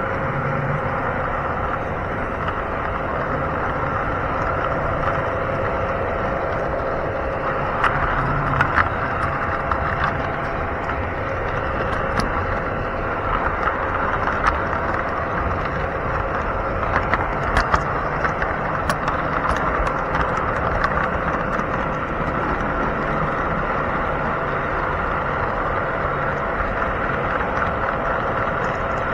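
O-scale model train rolling along the track, heard aboard a gondola car: a steady rumble and whine with scattered clicks, bunched about eight to nine, twelve and seventeen to nineteen seconds in.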